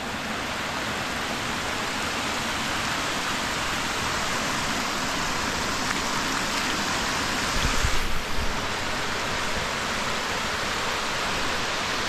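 Stream water rushing steadily over a low weir and down a sloping rock slab. A few low thumps come about eight seconds in.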